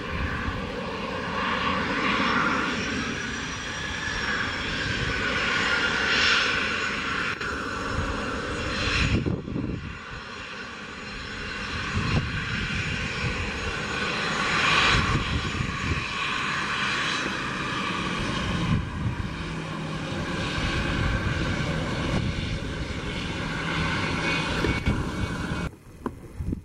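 Twin turbofan engines of a Cessna Citation X business jet at taxi power as it turns on the runway: a steady high turbine whine over a low rumble, swelling louder several times. About a second before the end the sound drops off suddenly.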